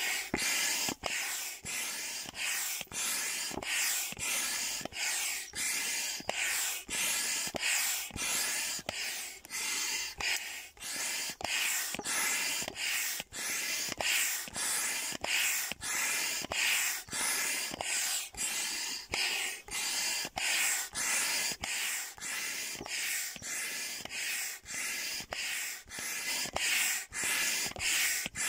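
Hand pump forcing air through a hose into a giant inflatable duck: a rush of air hisses with each pump stroke, about three strokes every two seconds in a steady rhythm.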